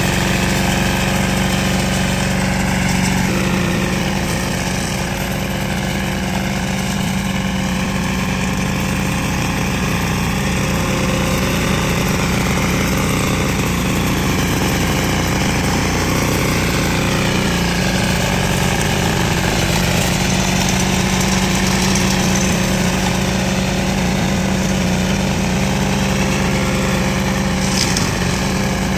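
Single-cylinder R180 diesel engine driving a multi-purpose grass-cutting machine, running steadily with slight shifts in pitch a few times.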